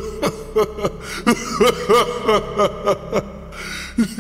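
A man laughing heartily: a long run of short 'ha' bursts, about three or four a second, with a brief break near the end.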